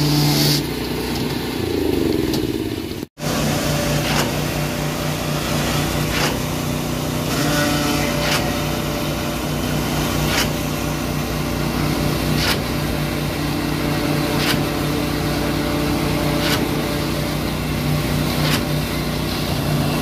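Concrete pump engine running at a steady pitch, with a short knock about every two seconds as the pump strokes and pushes concrete through the delivery hose. The sound drops out for an instant about three seconds in.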